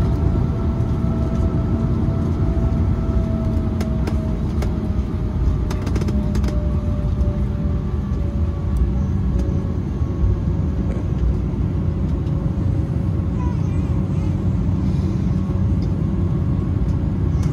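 Cabin noise inside an Embraer E190 taxiing: a steady low rumble under the whine of its GE CF34 turbofans at taxi power, the whine slowly dropping a little in pitch.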